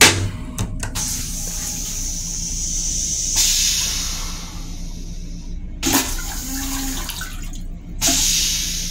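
Train-toilet seat dropped onto the bowl with a loud thump, then the toilet flushing: rinse water hissing into the stainless-steel bowl in a few bursts that start and stop sharply.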